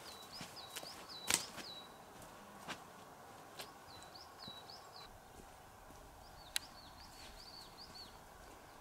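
A small songbird calling in three short runs of quick, repeated high chirps. A few sharp cracks and crunches come between them, the loudest about a second and a half in.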